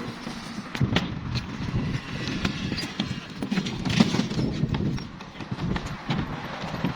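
Construction site work: irregular knocks and clatter over a low rumble.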